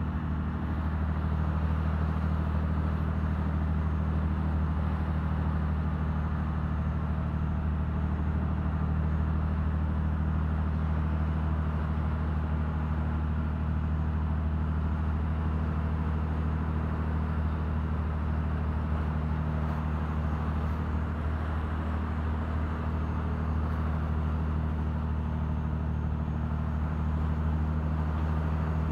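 Fishing trawler's diesel engine running steadily under way, a constant low drone, with water rushing and splashing along the hull from the bow wave.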